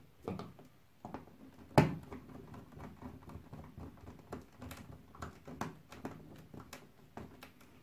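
Small clicks and taps from hands working wires into a plastic screw terminal block, with one sharp click just under two seconds in.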